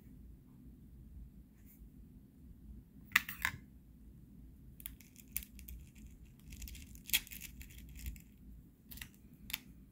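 Small metallic clicks and clinks of .22 lead airgun pellets being handled, picked from their tin and set on and swept off a digital scale's metal pan. The loudest pair of clicks comes about three seconds in, then single ticks and a short run of rattling clinks follow.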